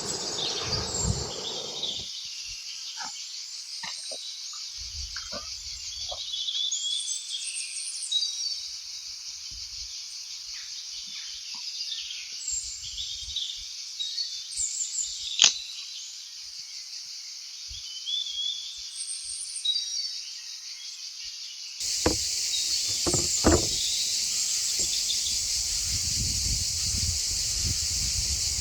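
Steady, high-pitched insect chorus with scattered bird chirps and a few light clicks and knocks. About 22 seconds in, the sound cuts abruptly to a louder insect chorus over a low rumble.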